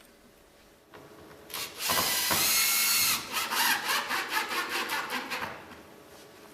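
A power drill runs at speed for about a second, fixing into bitumen corrugated roofing sheet. It is followed by a couple of seconds of rapid, irregular rattling ticks that fade out.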